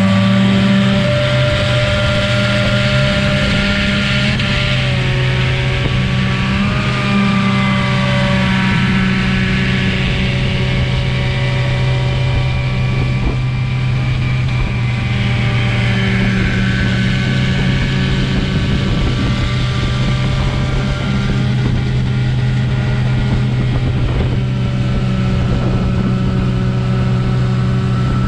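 Powerboat engines running at speed, holding a steady pitch with small rises and dips, over the rush of water and spray from the hulls.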